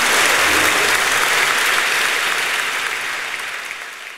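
Audience applauding, steady at first and then fading out over the last couple of seconds.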